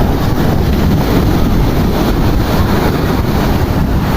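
Ocean surf with wind blowing across the microphone: a steady, loud rush, heaviest in the low end.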